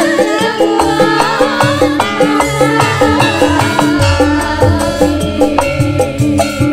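Campursari music playing loud, with a steady, even beat under a moving melody line.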